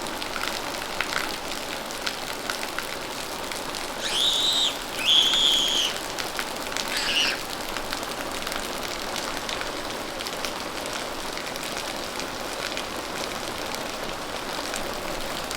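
Steady rain falling, an even hiss with many small drips and patters. Roughly a third of the way in, three short high-pitched calls sound one after another.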